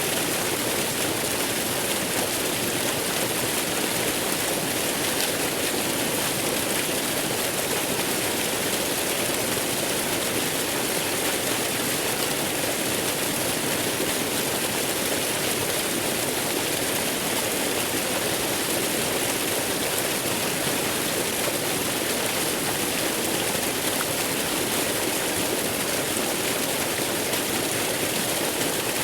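Waterfall rushing: a steady, even roar of falling water with no breaks or changes.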